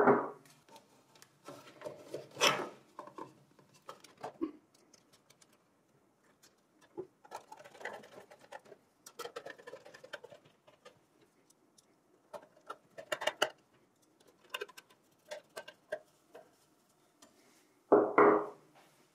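Hand screwdriver driving screws into an SSD mounting bracket in a steel PC case drive bay: irregular clicks, scrapes and small metallic rattles. A louder knock at the start and another about a second before the end.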